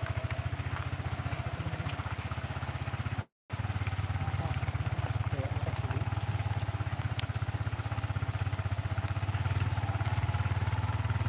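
Motorcycle engine running steadily under the riders on a dirt forest track, with an even, fast pulsing beat. The sound cuts out for a moment about three seconds in.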